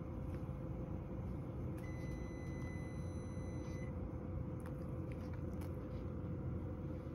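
Steady low room hum. A faint, thin, high electronic tone starts about two seconds in and lasts about two seconds. A few faint clicks follow near the end.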